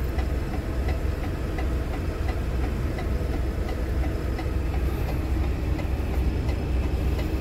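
Heavy truck's diesel engine idling steadily with a deep rumble and a faint, regular ticking.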